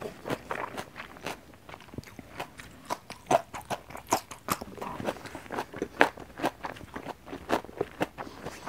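Close-miked eating sounds: fingers pressing rice and fried beef lung together on a banana leaf, then chewing with wet smacks and clicks, several a second, the sharpest about three, four and six seconds in.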